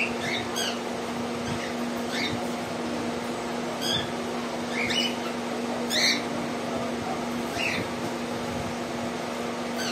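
Indian ringneck parakeets giving short, sharp calls, about seven or eight spread irregularly, the loudest near the start and about six seconds in, over a steady low hum.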